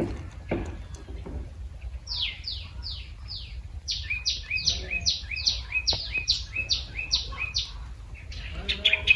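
A bird calling a long run of quick, sharply down-slurred chirps, about three a second, starting about two seconds in and going on for several seconds, followed near the end by a faster tumble of chirps.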